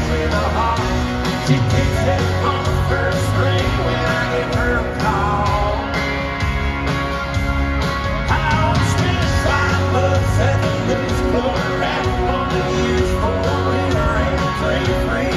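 Live country-rock band playing in an arena, with electric guitars, drums and singing, loud and continuous.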